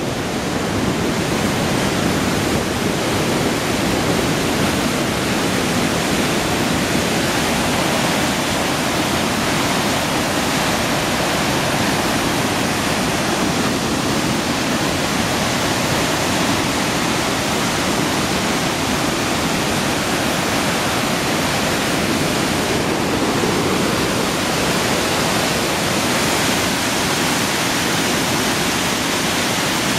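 Magog River white water pouring over rocks and a dam spillway, a loud, steady rushing with no let-up.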